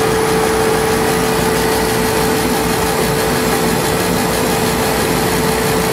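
Gweike CO2 laser cutter running as it cuts plywood: a steady machine whir with one constant hum.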